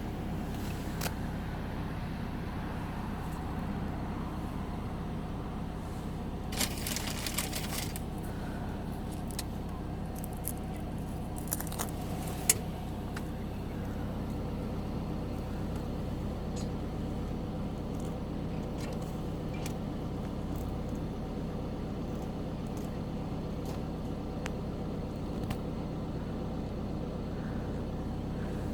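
A steady low mechanical hum, like a running engine, with scattered light clicks and two short rustling noises.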